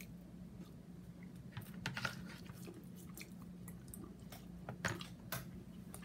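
A person biting into and chewing a hard, dry ration biscuit, giving faint scattered crunches. A steady low hum runs underneath.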